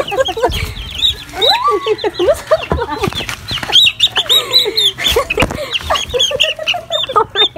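A flock of chickens calling all at once: many short, high chick peeps over lower hen clucks and squawks.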